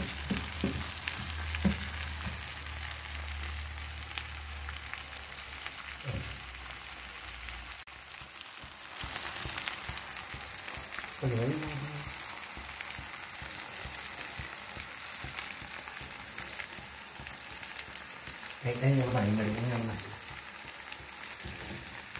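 Mutton brain curry frying in oil in a nonstick pan, with a steady sizzle and bubbling. A spatula clicks and scrapes against the pan in the first couple of seconds. A voice is heard briefly twice.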